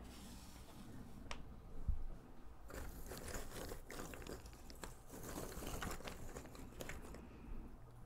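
Cardboard jigsaw puzzle pieces clicking and rustling as a hand rummages through a box of loose pieces. A few single pieces tap down in the cardboard lid at first, with a soft knock about two seconds in; the rustling of the sifted pile grows denser from about two and a half seconds in and eases off near the end.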